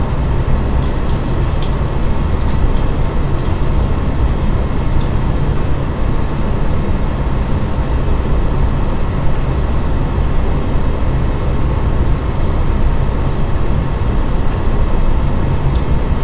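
Steady rushing street noise with a heavy low rumble: the soundtrack of a bike-ride video through city streets, played over loudspeakers.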